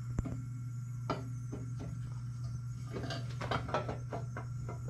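Scattered light clicks and knocks of a metal fan shroud being handled and fitted onto a small two-stroke engine, busiest in the second half, over a steady low hum.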